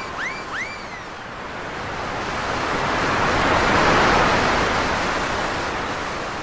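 Sea surf washing onto a beach: the rush of a wave swells to a peak about four seconds in, then eases off. Three quick rising-and-falling calls sound right at the start.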